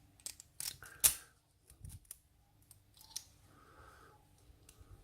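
Light metallic clicks and ticks from a 6-pin challenge lock being handled as it is taken apart, with its retaining clip being dealt with. About half a dozen clicks, the loudest about a second in, and a faint short rasp near the four-second mark.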